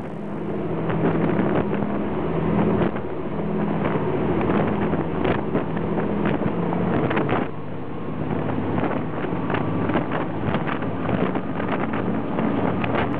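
Boat running at high speed through rough sea: a steady drone of diesel engines under the rush of water, with repeated sharp slaps of waves and spray against the hull and wind buffeting the microphone.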